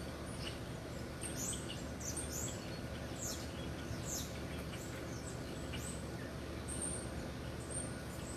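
Outdoor ambience: small birds chirping again and again with short, high, falling notes, over a steady low background rumble.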